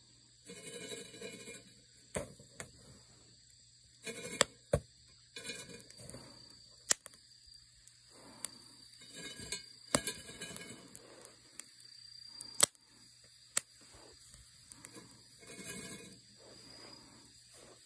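Chestnuts roasting: scattered sharp pops and cracks, several short bursts of rustling and crackling, over a steady high insect chirring.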